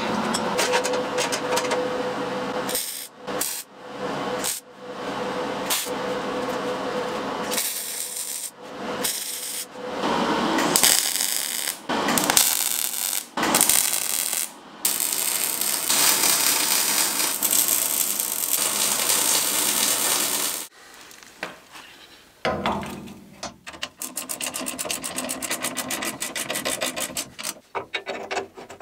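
Steel being worked, in a string of short cuts. First come scraping and grinding noises broken by brief gaps, then several seconds of steady MIG welding crackle. After a short lull there is rapid, even clicking near the end.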